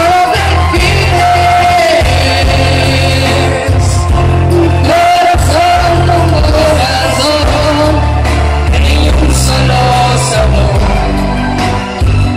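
Loud amplified pop song performed live through stage PA speakers: sung vocals holding and sliding between long notes over a steady bass and drum beat.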